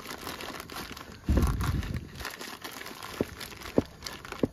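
Plastic packaging crinkling as a hand rummages in a small wooden storage drawer. A low bumping rumble a little over a second in is the loudest sound, and three short sharp taps come near the end.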